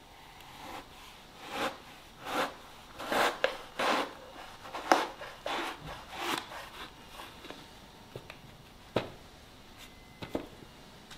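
Firestorm Damascus chef's knife sawing through a roll of blue paper towels: a series of rasping slicing strokes for about six seconds, followed by two sharp knocks near the end.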